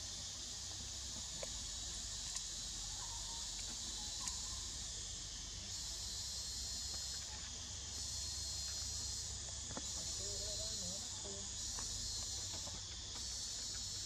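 Steady high-pitched insect chorus, swelling and easing in level from about six seconds in, over a soft low rumble, with a few faint ticks.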